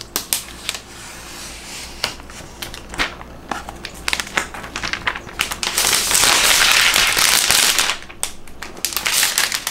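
Thin plastic protective wrap being peeled off a new laptop, crackling and crinkling in quick sharp bursts, with a louder unbroken crinkling stretch of about two seconds in the middle.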